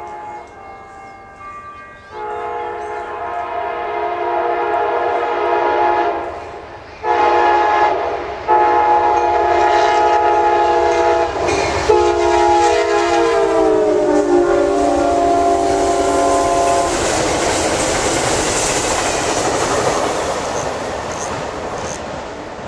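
Amtrak GE P42DC locomotive's horn blowing loud, long blasts as the passenger train approaches at speed, the chord sliding down in pitch as the locomotive passes. Then the noise of the passenger cars and their wheels going by.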